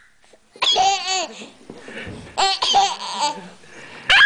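Baby laughing in three short, high-pitched bursts.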